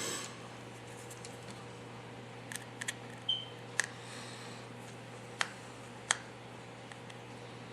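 A few small, sharp clicks and taps spread over several seconds, with a brief squeak near the middle: a precision screwdriver working the tiny screws of an iPhone 5's battery-connector bracket.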